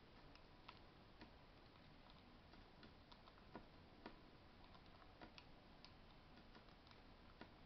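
Faint, irregular clicks of a cockatiel's beak pecking at seed mix in a clear plastic container.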